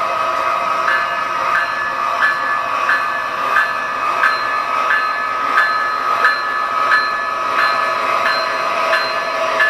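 O scale model train running past: a steady whine, with a regular click about every two-thirds of a second as the cars roll over the track.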